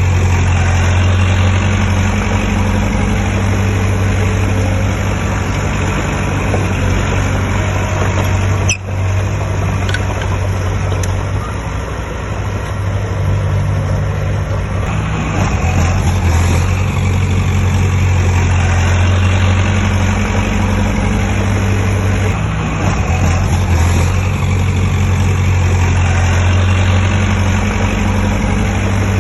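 Heavy diesel construction machinery engine running steadily with a deep, even hum, with a brief dropout about nine seconds in.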